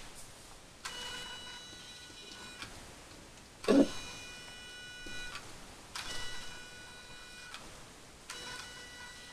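no!no! heated-wire hair removal device whirring steadily in four passes of about a second and a half to two seconds each, with short gaps between them, as it is glided over stubbly leg hair. A single loud thump about a third of the way through.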